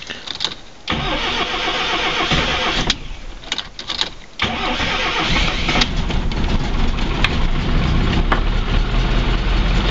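ZAZ Tavria petrol engine cranked by its starter for about two seconds. After a short pause and a few clicks, it fires about four and a half seconds in and settles into a steady idle. It is a cold start on the choke, because lack of fuel had kept the alarm's remote start from firing it.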